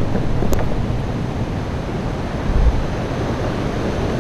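Wind buffeting the microphone outdoors, a steady rough rush with a stronger gust about two and a half seconds in.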